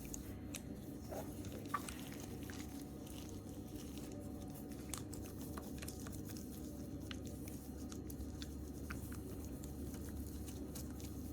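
Slime being squished and worked by hand: a steady run of small wet clicks and crackles.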